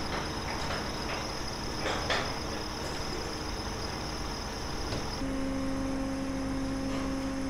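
Machinery noise from funfair ride assembly: a steady high whine with a few light knocks, giving way about five seconds in to a lower steady hum.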